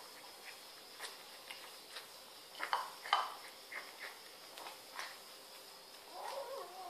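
Two kittens eating from one small bowl: scattered clicks and smacks of chewing and the bowl knocking, the loudest about three seconds in. Near the end comes a short, wavering kitten cry.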